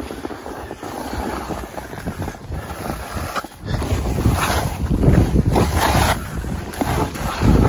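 Wind buffeting the microphone of a camera carried by a skier, with skis hissing and scraping over packed snow; it all grows louder about four seconds in, as the skier picks up speed and turns.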